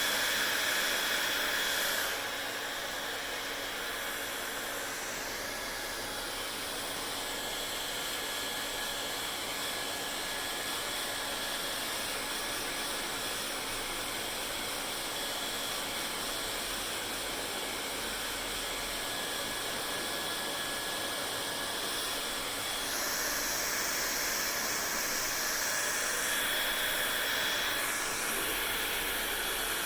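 Hair dryer running with a steady blowing hiss and a faint whine. It gets a little quieter about two seconds in and louder again past two-thirds of the way through.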